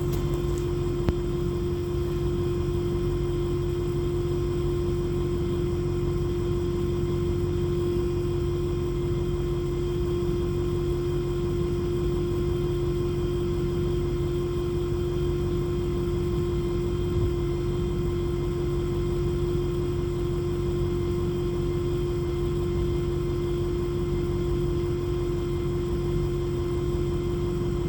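Brand-new AirDog diesel fuel lift pump running with a loud, steady whine, heard through the cab floor just above the pump, over a low engine rumble. The noise is louder than the owner expects from a new pump.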